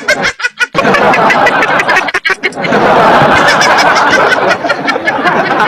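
People laughing hard: a quick run of rhythmic laughs at first, then several voices laughing loudly together.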